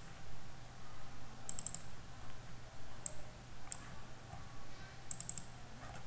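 Computer mouse buttons clicking: a single click, a quick double-click about a second and a half in, two single clicks around the middle, and another double-click near the end, over a faint steady low hum.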